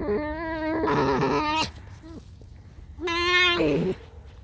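Pet fox making high, wavering squeaky whines. There are two calls back to back at the start, then another about three seconds in that drops in pitch as it ends.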